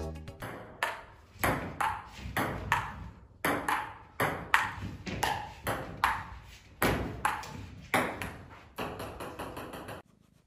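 Table tennis ball bouncing and clicking on the table, struck again and again at an uneven pace of about two hits a second, each hit ringing briefly. It stops abruptly near the end.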